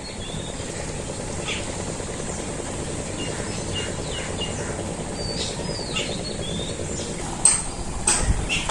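Ducklings peeping in short, scattered high chirps, several sliding down in pitch, over a steady rural background hiss. Near the end a few sharp knocks and a low rumble come in.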